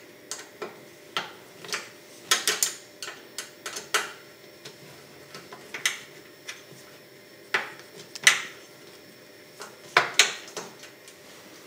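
T-handle hex key clicking and clinking against an aluminium extrusion rail and its steel bracket as a screw is backed out. Scattered sharp metallic clicks, a few bunched together about two and a half seconds in and again near eight and ten seconds.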